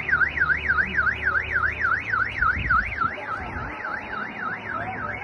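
Car alarm sounding a fast rising-and-falling warble, about four to five sweeps a second, growing a little fainter in the second half.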